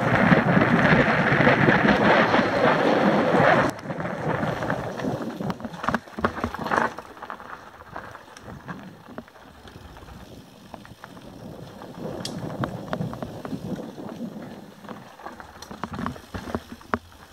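Mountain bike rolling fast down a dirt-and-gravel singletrack, heard from an action camera on the bike: wind rushing over the microphone with tyre and bike rattle. It is loud for the first few seconds, then drops suddenly to a quieter rolling broken by scattered clicks and knocks.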